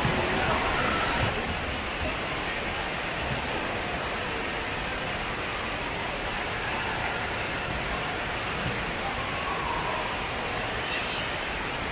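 Steady rush and splashing of water in an indoor water-park pool, with faint children's voices in the background.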